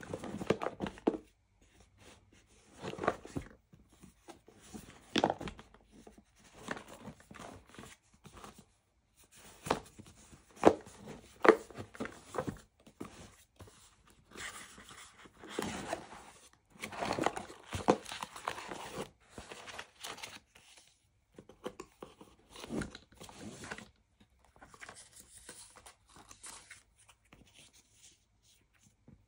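Cardboard product box being opened by hand: irregular rustling, scraping and tearing of the packaging, with a few sharp clicks, and paper leaflets handled near the end.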